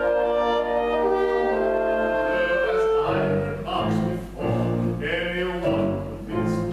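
Chorus and pit orchestra of a live comic opera holding a sustained final chord, which breaks off about three seconds in. After that a solo man's voice sings in short phrases over the orchestra.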